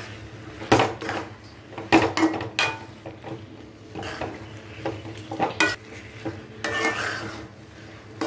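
Spatula stirring thick chilli chicken pieces and sauce in a metal kadai, scraping and knocking irregularly against the pan as the chicken is tossed to coat it.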